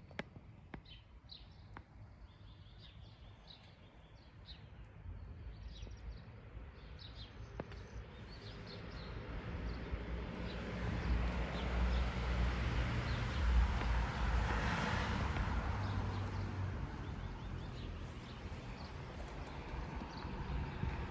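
Outdoor ambience: birds chirping in the first several seconds, then a low rushing noise with rumble that swells past the middle and eases off slightly towards the end.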